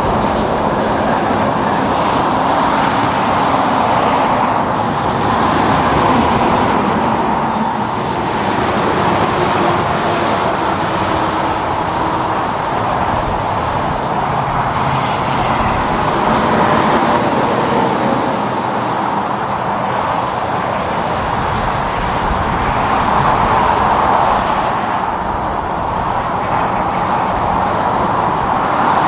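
Steady road traffic noise from trucks and cars going by, the tyre and engine noise swelling and fading several times as vehicles pass.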